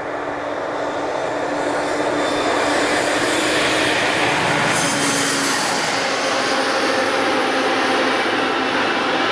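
DR class 118 diesel-hydraulic locomotive approaching and running past with a passenger train. Its engine drone grows louder over the first few seconds and then holds steady, with a low hum that shifts down slightly about halfway through.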